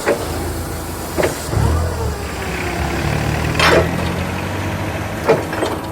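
A big truck's engine running at idle, a steady low rumble that comes in about a second and a half in, with a few sharp knocks over it.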